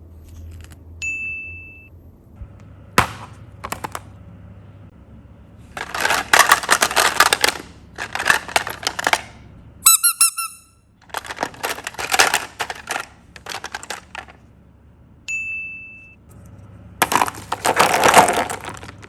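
Slime being squeezed and worked by hand, crackling and popping in four bursts of a second or two each. A short high beep sounds twice, about a second in and again past the middle, and a brief sparkling chime comes about halfway.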